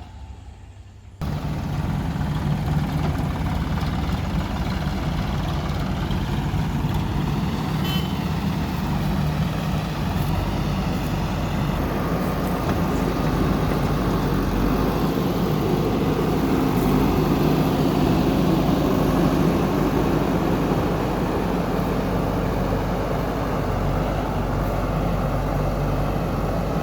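Diesel engine of a JCB backhoe loader running steadily while loading mud, jumping suddenly louder about a second in.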